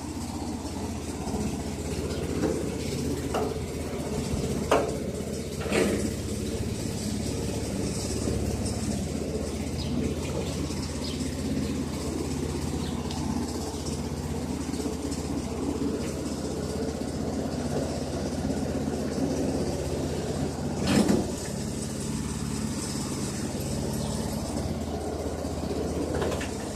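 Gasoline engine running steadily, driving the hydraulic motor of a homemade concrete mixer, with a few short knocks; the loudest comes about 21 seconds in.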